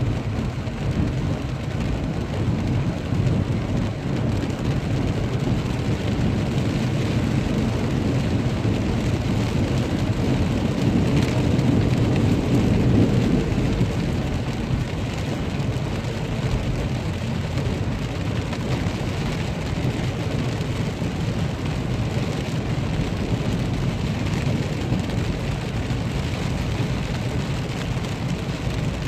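Heavy rain falling steadily, a dense low rushing noise that swells a little about twelve seconds in.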